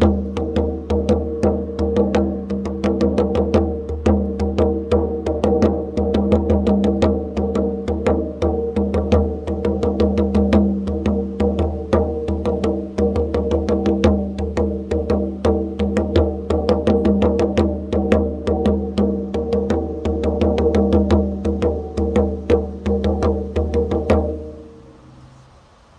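Large hand frame drum struck with the palm in a fast, steady rhythm, its deep head ringing on under the strokes. The playing stops about 24 seconds in and the ring dies away.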